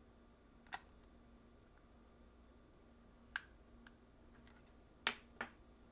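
A few small, sharp clicks from tweezers working a camera's circuit board free of its retaining clips. There is one click about a second in, another past the middle, and a quick pair near the end.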